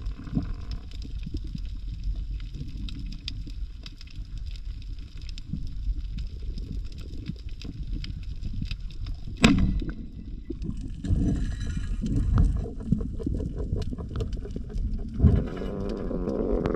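Underwater ambience through a camera housing: a steady low rumble of water dotted with small crackling clicks. About nine and a half seconds in comes one sharp loud shot, fitting a rubber-band speargun firing. Near the end a knock is followed by a bubbling wash as air bubbles rise past.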